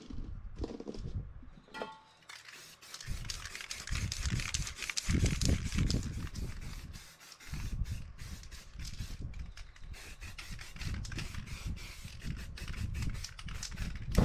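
Pebbles clicking and shifting as they are set by hand, then an aerosol spray-paint can hissing in many short bursts from about two seconds in as black paint is sprayed over the stones, with low thumps and rumble underneath.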